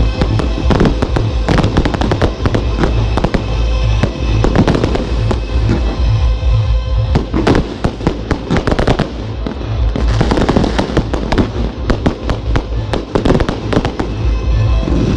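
Aerial fireworks shells bursting and crackling in rapid succession, many sharp bangs a second, with music playing underneath.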